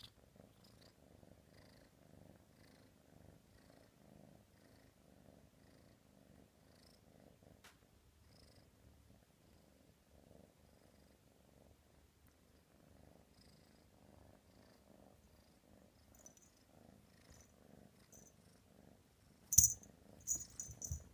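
F3 Savannah kitten purring, a faint, steady, pulsing purr. Near the end a few sharp, loud clicks or knocks cut in over it.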